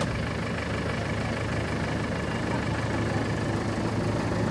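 Engine of a road tourist train's locomotive-styled tractor unit idling steadily while the train stands still.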